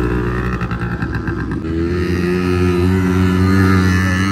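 Quad bike (ATV) engine running close by, its pitch rising about halfway through as it speeds up and then holding steady.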